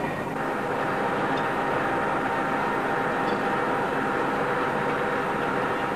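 Steady running noise of workshop machinery, a machine tool boring out a locomotive cylinder casting, with a faint steady hum through it; the noise grows a little fuller just after the start.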